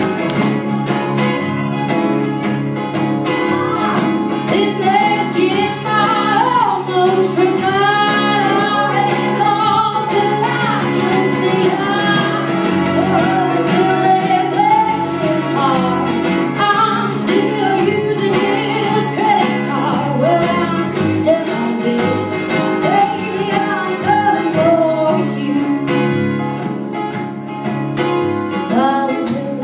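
Country song played live: a woman singing over plucked acoustic guitar accompaniment.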